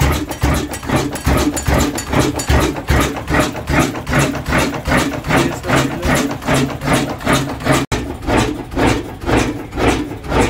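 Old Ruston single-cylinder horizontal diesel engine running steadily after starting, with an even, heavy beat of firing strokes about three a second.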